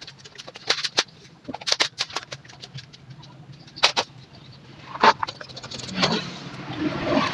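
Irregular sharp clicks and knocks, a few seconds apart, over a steady low hum.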